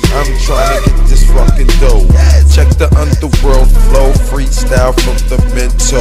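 Hip hop beat with heavy bass and regular drum hits, with a rapper's voice over it throughout.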